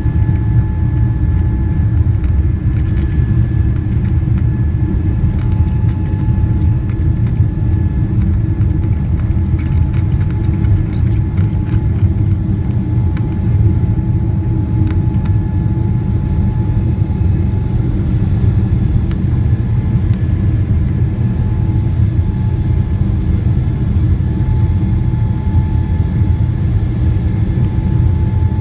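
The GE90-115B turbofan engines of a Boeing 777-300ER, heard inside the cabin beside the wing at takeoff and initial climb thrust: a loud, steady, deep rumble with a faint steady whine above it.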